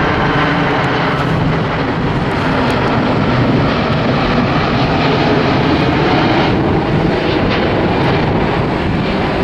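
Boeing VC-25A (747-200B) Air Force One's four General Electric CF6-80C2 turbofan engines running on final approach with the gear down, a loud, steady jet noise from a low flyby.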